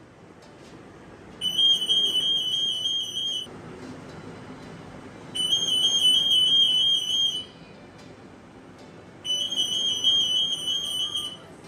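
RF anti-theft security gate (8.2 MHz EAS) alarm going off three times, each a rapid pulsing high beep lasting about two seconds. It is the gate's signal that a security tag has passed between its antennas.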